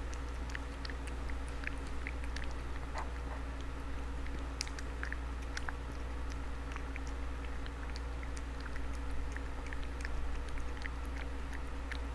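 A tortoiseshell cat eating wet food from a bowl: irregular small wet clicks and smacks of chewing, over a steady low hum.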